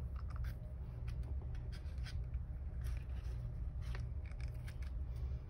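Faint rustling and rubbing of macramé string being handled, pulled through and tightened into knots by hand, over a steady low hum.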